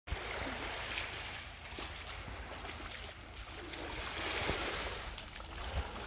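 Small waves washing gently onto a sandy beach in a soft, swelling hiss that rises and falls every second or two, over a low rumble of wind on the microphone.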